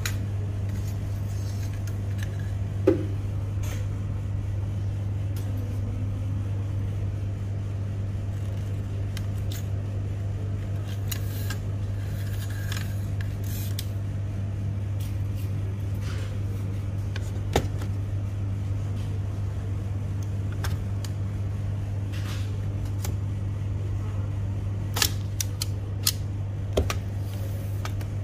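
Scattered clicks and knocks of a Toshiba e-Studio printer's fuser unit being handled as its heat roller is taken out: plastic housing and metal bearing parts knocking together. The sharpest knock comes about three seconds in, and a quick cluster of clicks comes near the end, all over a steady low hum.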